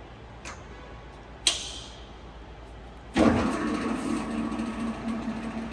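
A couple of sharp clicks from the Pinacho SP/250 lathe's gear-selector levers, then about three seconds in the lathe starts with a sudden jump in level. It runs with a steady gear hum as the carriage is driven at its maximum feed rate.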